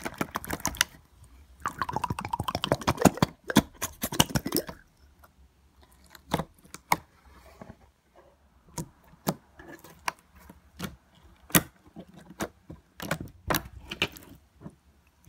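Thick, jiggly slime with crunchy bits mixed in, squished and pressed by hand: wet clicking and crackling pops, packed closely for about the first five seconds, then scattered single pops.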